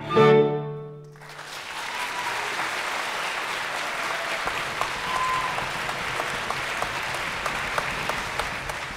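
A violin, cello and flute play the final chord of a tango, which is cut off about a second in. Audience applause follows and runs steadily to the end.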